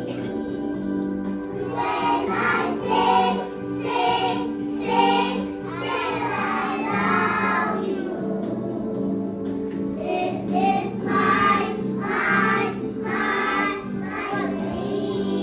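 A group of young children singing together in phrases over a recorded backing track with steady low notes.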